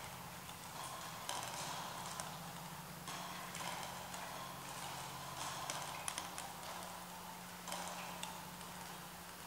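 Irregular light clicks and taps, some in quick clusters, over a steady low hum.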